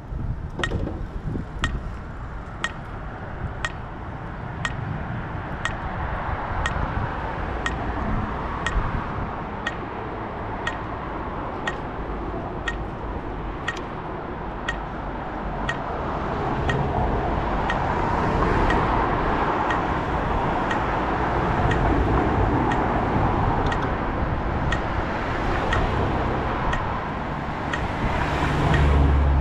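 Road traffic passing, growing louder in the second half, over a steady, evenly spaced tick repeating a little faster than once a second.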